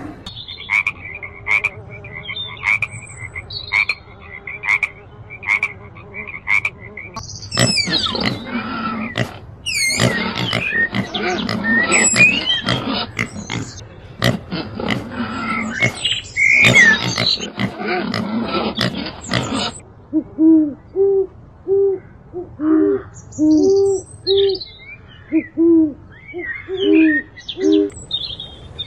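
A run of different animal calls. First comes a series of sharp clicks with a repeated high note, then a dense noisy stretch of squeals, and from about two-thirds of the way in an even series of short, low hoots.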